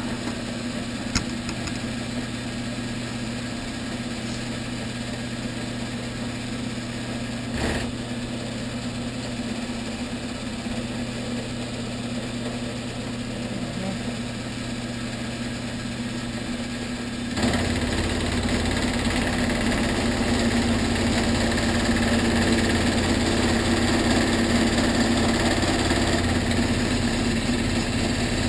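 Vertical milling machine spindle running steadily. About two-thirds of the way through the sound suddenly gets louder and rougher as the cutter begins cutting into the metal workpiece.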